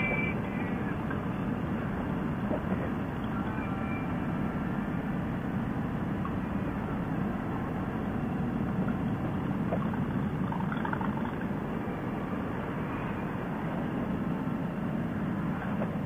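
Harley-Davidson touring motorcycle's V-twin engine running steadily at cruising speed, mixed with road and wind noise.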